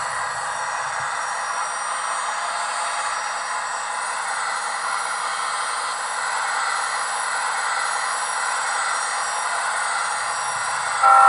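Gas turbine locomotive sound from the LokSound V4 decoder's Full Throttle sound project, played through the Athearn gas turbine model's small onboard speaker as the model runs: a steady rushing whine. A louder pitched sound cuts in right at the end.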